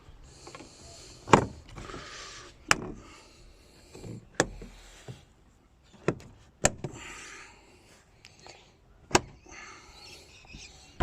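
Plastic and metal parts of a car door's inside being handled and hooked into place: about six sharp clicks and knocks spread out, with scraping and rustling between them, as the part is worked into its locking catch until it is in.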